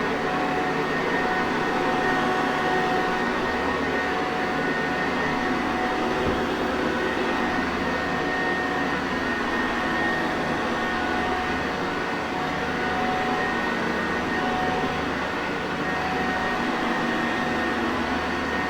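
Sanitaire Perfect upright vacuum cleaner running steadily: a constant rush of motor and airflow with a few faint steady whining tones on top.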